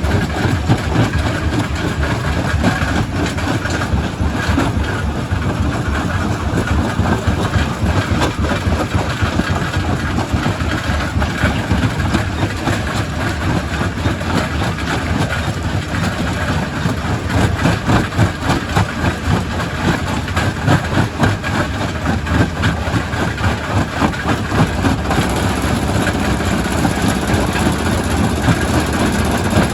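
Primary rock crusher at work: a steady heavy rumble with a constant, irregular clatter and knocking of stone being broken.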